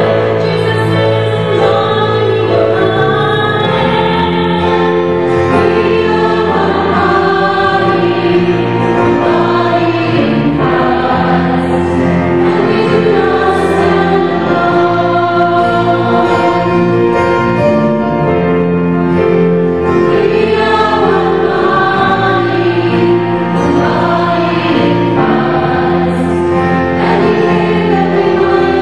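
Background music: a choir singing a sacred piece.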